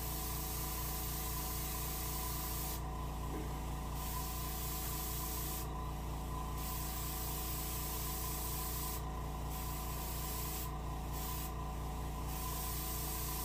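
Airbrush spraying sailfish blue paint in a light mist. Its steady air hiss breaks off briefly about five times between passes, over a steady low hum.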